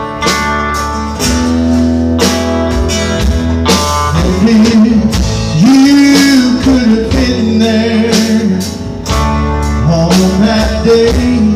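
Live country band playing an instrumental passage between sung lines, with electric and acoustic guitars over drums. A lead line slides up and down in pitch over the steady backing.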